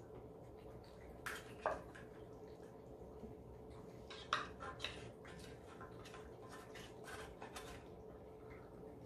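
Metal spoon scraping and clinking against a tin of wet cat food and the cats' bowls. There are a couple of sharp clinks about a second and a half in, a louder cluster around four to five seconds, then lighter scrapes.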